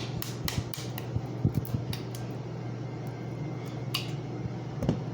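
Spoon clinking and knocking in a bowl as chicken and mixed vegetables are stirred together, in scattered irregular taps, over a steady low hum.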